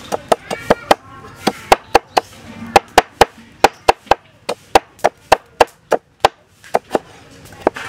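A knife chopping fresh galangal root on a wooden chopping board: a quick run of sharp chops, about three or four a second, broken by a couple of brief pauses.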